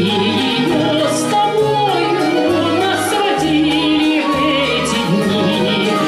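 Russian folk-instrument orchestra of domras and balalaikas playing a slow romance, with a woman singing over it.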